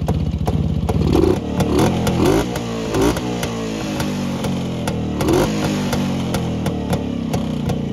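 Exhaust of a Rajdoot 175's single-cylinder two-stroke engine idling and revved in short throttle blips, several in the first three seconds and one more about five seconds in, each rising and falling back to idle.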